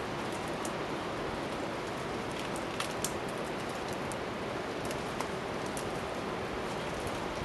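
Steady hiss of rain on wet foliage, with a few sharp snaps of twigs and branches, two close together about three seconds in, as people climb through the crown of a fallen eucalyptus tree.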